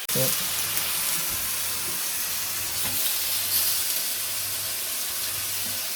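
Meat sizzling and frying on a hot electric skillet, a steady hiss throughout.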